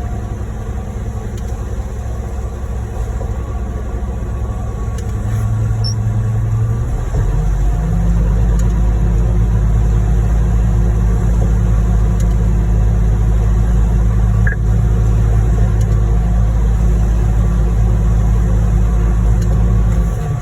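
Concrete pump truck's diesel engine running steadily with a low drone. It steps up to higher revs and louder about seven seconds in, holds there, and eases off at the very end.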